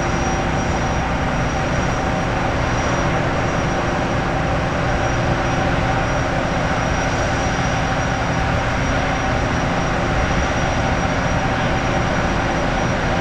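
Jetfoil's gas turbines running steadily: a constant turbine whine and rumble with a few held tones.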